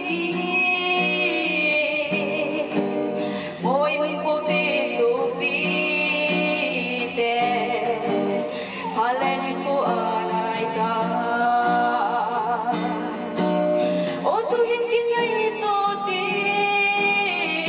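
A woman singing a song through a microphone in long, sliding phrases over instrumental backing.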